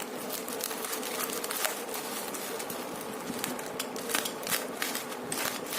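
Packaging being handled and opened: a run of irregular crackles and rustles.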